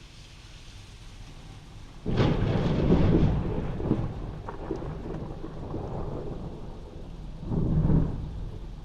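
Thunder during steady rain, heard from inside a house: a sudden loud clap about two seconds in that rumbles on and slowly fades, then a second rumble swelling near the end.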